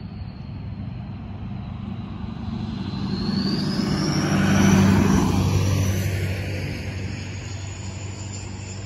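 Pickup truck driving past over the grade crossing. Its engine and tyres build to a peak about halfway through, then fade away.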